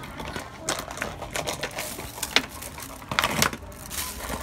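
Scattered light clicks and taps at an irregular pace, the sharpest about two seconds in and a short cluster about three seconds in.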